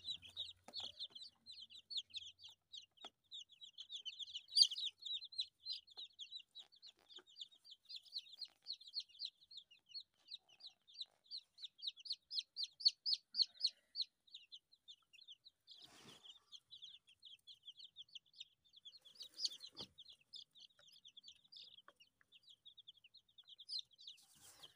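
A group of day-old Australorp chicks peeping without a break: rapid, high, short cheeps, many a second. A few brief knocks stand out, about 16 and 20 seconds in and near the end.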